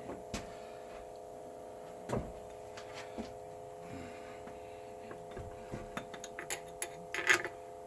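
Scattered light clicks and knocks of metal engine parts being handled as a Gravely Model L crankcase is fitted together, more of them near the end, over a steady hum.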